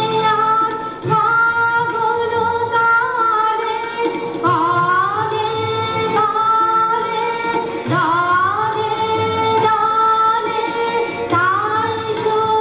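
Indian song accompanying a dance: a woman's voice sings long held notes with sliding turns over a steady held tone and tabla.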